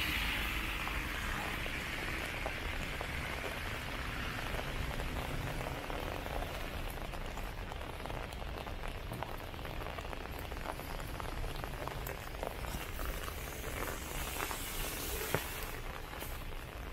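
Rain falling steadily, with many small drops ticking and pattering, over a low rumble. A passing vehicle fades away in the first couple of seconds.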